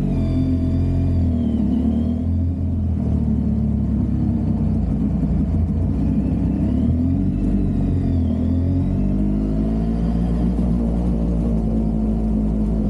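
Motorcycle engine running under way, heard from on the bike, its revs rising and dipping several times over a steady low rumble of road and wind noise.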